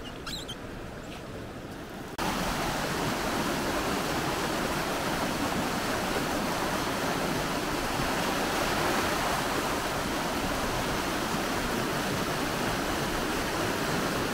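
Shallow rocky stream rushing and splashing over stones, a steady loud wash that cuts in suddenly about two seconds in. Before it, quieter outdoor background with a few faint high chirps.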